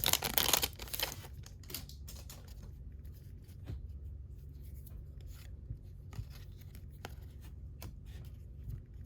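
A trading card pack's wrapper is torn open in the first second. The cards are then handled, slid and flipped, with faint scattered clicks and rustles.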